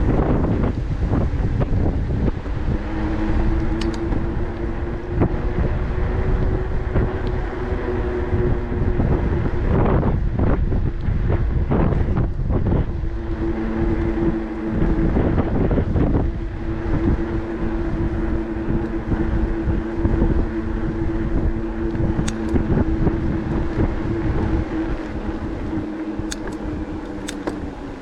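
Decathlon Rockrider e-bike's electric motor whining at a steady pitch under way, over a steady rumble of wind on the microphone. The whine fades out for a few seconds before the middle, then comes back and holds.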